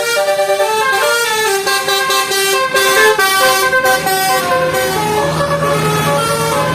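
Tour bus's basuri "telolet" musical air horn playing a tune: a run of held horn notes stepping up and down in pitch. A lower steady drone joins about four seconds in.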